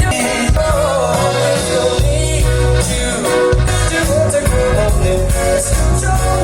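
A recorded song with a lead vocal and a strong, pulsing bass line, played loud over large hi-fi loudspeakers during a listening demo.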